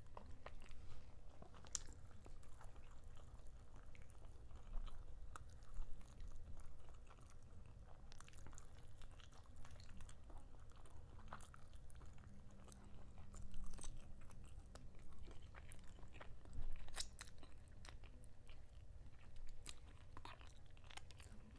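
Close-miked mukbang eating sounds: a person chewing and biting into a chicken drumstick, with soft wet chewing and scattered small crunches and clicks.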